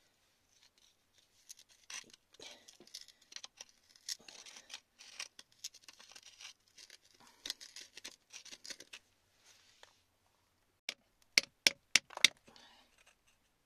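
Metal pick scratching and scraping through wet, gritty soil and stones around an embedded crystal, then about five sharp taps in quick succession near the end as the tool strikes stone.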